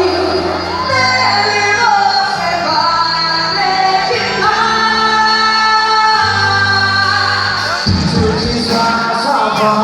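Music with singing for a quadrilha junina dance: held vocal lines over sustained bass notes, with a regular drum beat coming in about eight seconds in.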